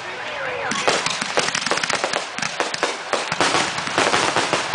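Fireworks going off in a dense, continuous run of sharp bangs and crackles, several a second.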